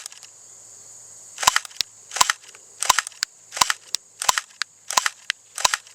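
Walther P99 electric (AEP) airsoft pistol firing on semi-automatic: about seven single shots, evenly paced at roughly one and a half a second. Each shot is a sharp snap with the blowback slide's clack.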